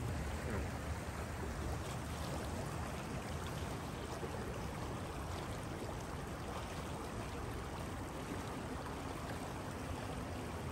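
A river flowing steadily: an even, unbroken rush of water.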